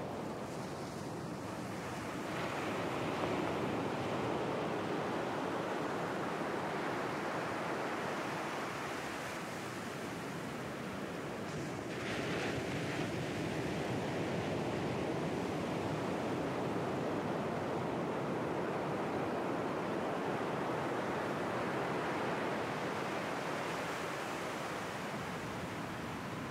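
Ocean surf washing onto the shore as a steady rush of noise, swelling a little louder a couple of times.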